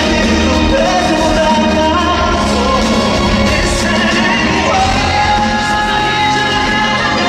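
Live concert music with a male vocalist singing long held notes over the band, and fans shouting.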